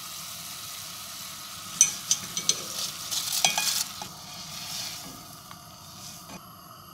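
Rice being stirred with a spoon in a pot of boiling water: a steady hiss, with a run of scraping and clicking against the pot in the middle and a few light taps near the end.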